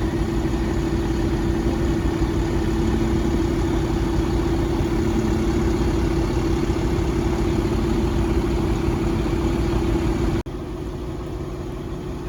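Crane's engine running at a steady speed, a constant hum. About ten seconds in it cuts out for an instant and comes back somewhat quieter.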